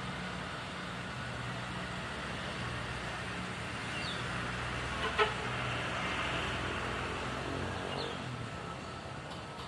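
A motor vehicle engine running steadily with a low hum, with one sharp click about five seconds in and a few short high chirps.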